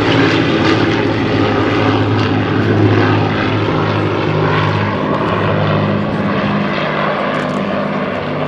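Boeing B-17G Flying Fortress in flight, its four Wright Cyclone nine-cylinder radial piston engines making a loud, steady drone that eases slightly after about halfway.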